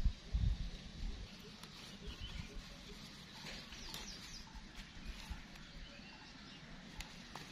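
Faint rustling and snapping of sweet potato leaves being picked by hand, with a few faint bird chirps and some low bumps in the first second.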